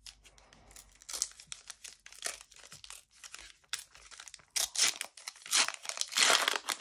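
A Panini Euro 2020 trading-card booster pack being torn open by hand, its wrapper crinkling and ripping in short crackles. The crackles grow louder and denser in the last two seconds.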